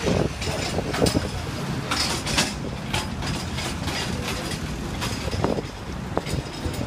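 City street traffic, with vehicles passing close by, among them a utility truck towing a cable-drum trailer; a low rumble with scattered clatters and knocks.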